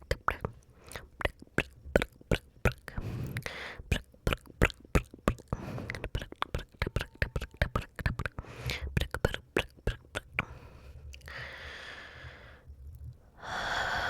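Close-miked ASMR mouth sounds: rapid wet tongue clicks and lip smacks, several a second, then a breathy rush of air near the end.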